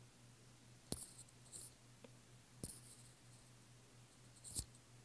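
Three sharp taps of a stylus on a tablet screen, each followed by a brief faint scratch of the tip, roughly two seconds apart; the last tap is the loudest.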